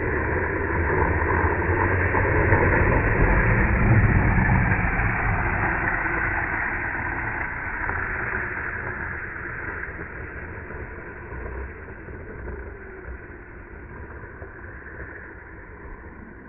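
Longboard's urethane wheels sliding and rolling on asphalt, a steady rumbling hiss. It is loudest about four seconds in, then fades as the board moves away down the hill.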